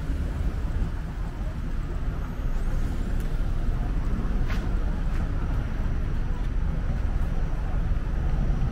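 Steady city street traffic noise: a continuous low rumble of passing cars and a streetcar.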